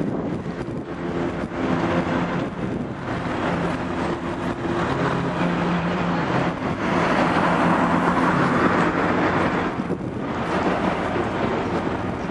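City street traffic: motor vehicles running, with a low engine hum and a louder passing vehicle swelling from about seven seconds in and dropping away at about ten seconds.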